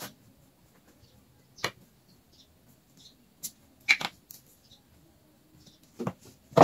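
About six light clicks and taps, one to two seconds apart, from kitchen handling while a cheese sandwich is being put together.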